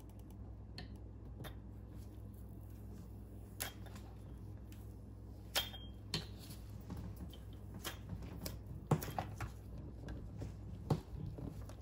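Scattered light clicks and taps of a hard plastic Marinco 70 A trolling motor receptacle and its flip cap being handled and turned over in gloved hands, over a low steady hum.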